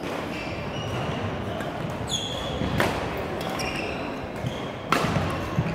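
Badminton rally: a racket strikes the shuttlecock in two sharp hits about two seconds apart, with sneakers squeaking on the hardwood gym floor in between.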